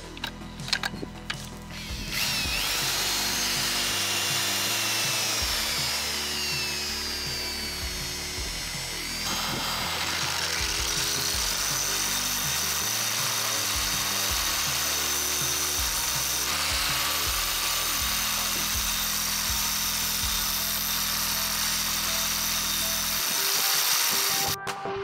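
Einhell angle grinder starting up about two seconds in and running under load, its high whine sliding lower for several seconds and then jumping back up, before it stops near the end. Electronic background music plays underneath.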